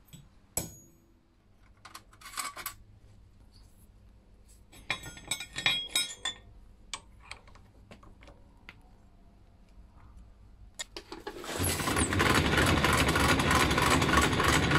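A hammer strikes a steel centre punch once near the start, then drill bits and a drill chuck clink as a bit is picked from a metal case and fitted. About three quarters of the way through, a drill press motor starts and runs loudly and steadily.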